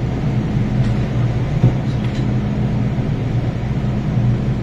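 Steady low hum inside an MTR M-Train car, with one short knock about a second and a half in.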